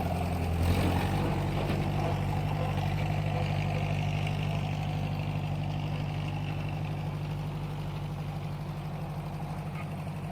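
An engine idling steadily with a fast, even pulse, slowly fading.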